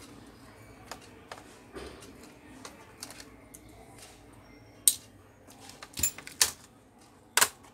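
Sharp plastic clicks and taps from a Toshiba Satellite C660 laptop keyboard being handled and pressed along its top edge as it is unlatched for removal. Four loud clicks come in the second half.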